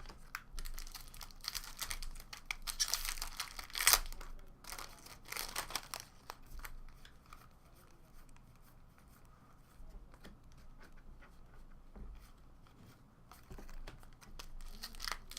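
Foil trading-card pack wrappers being torn open and crinkled by hand, with dense rustling for the first several seconds, quieter handling in the middle, and more crinkling near the end.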